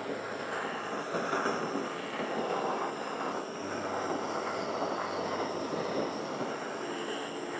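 Handheld kitchen blowtorch flame hissing steadily as it is played over the cream-cheese filling, caramelizing and scorching the top of a cheese tart.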